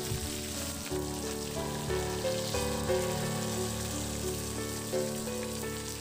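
Fish slices frying in hot oil in a wok, a steady sizzle as they finish cooking golden brown, under background music with a melody of held notes.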